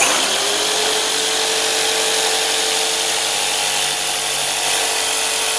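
Electric jigsaw cutting a circle out of a PVC board. The motor comes up to speed in the first half second, then runs at a steady pitch under the steady rasp of the blade.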